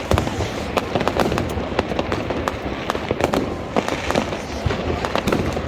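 Fireworks and firecrackers going off in a dense, unbroken barrage of overlapping bangs and crackles.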